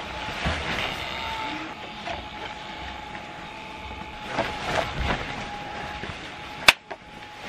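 Small battery blower fans inflating the costumes run with a steady whirring hum. Nylon fabric rustles as the suits are handled, and there is one sharp knock near the end.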